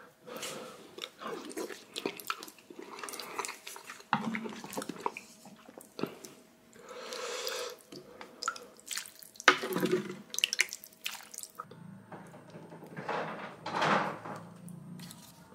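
Eating sounds from rice soaked in spicy ramen broth: a spoon stirring and scooping in the liquid, with wet sloshing and sharp clicks of the spoon.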